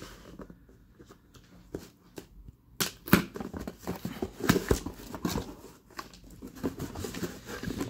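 Cardboard shipping box being opened by hand: packing tape slit with a pin and the flaps pulled open, giving irregular scrapes, crinkles and knocks, the sharpest a knock about three seconds in.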